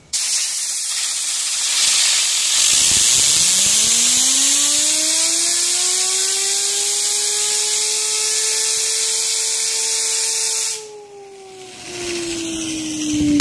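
Compressed air hissing from an air compressor onto a fidget spinner, which spins up with a rising whine that levels off. About eleven seconds in the air cuts off, the whine falls as the spinner slows, and then it stops suddenly.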